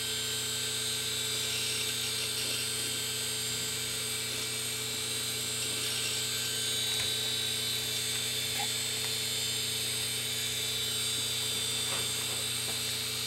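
Open-lid 1997 Fujitsu 2.4 GB hard drive running while it formats: the spindle motor and platters give a steady whine over a low hum. A few faint ticks come through, about halfway and near the end.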